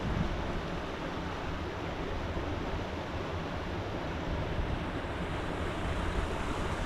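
River water rushing steadily, a dense even noise strongest in the low end, which cuts off suddenly at the very end.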